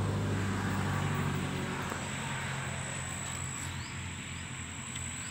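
Steady low motor hum that slowly fades, with an insect's thin, high, steady whine growing stronger from about two seconds in.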